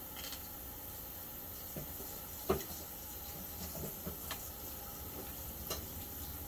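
Eating sounds: faint chewing and mouth clicks, with one sharper click about two and a half seconds in, over a steady background hiss.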